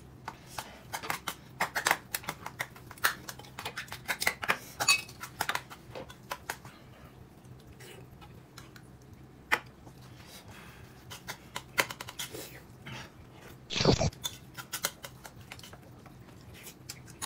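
Eating sounds at a table: chopsticks and dishes clicking and tapping irregularly, thick at first and sparser later, with one short louder noise about fourteen seconds in.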